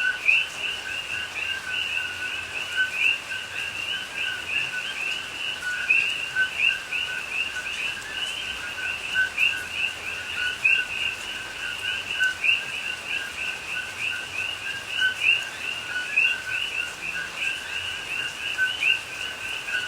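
A chorus of coqui frogs calling over one another: many overlapping two-note "co-qui" calls, a lower note and a higher note, repeating without a break.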